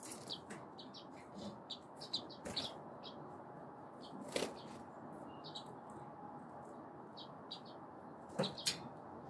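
Bearded reedlings in a wire cage giving many short, high chirps and fluttering their wings, with a few sharp taps about halfway through and twice near the end.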